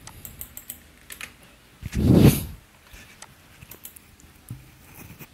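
Typing on a computer keyboard: a quick run of key clicks in the first second, then scattered clicks. About two seconds in comes a brief, loud rush of noise, the loudest thing heard.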